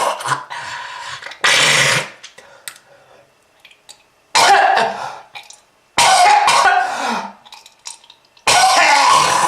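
A person coughing in repeated harsh fits: one trails off at the start, then four more come about every one and a half to two and a half seconds, each starting abruptly, a smoker's cough.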